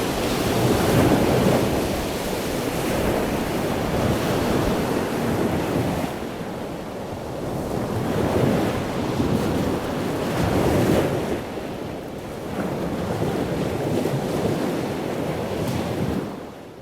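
Ocean surf: waves breaking and washing in a continuous rushing roar that swells and ebbs every few seconds, fading out near the end.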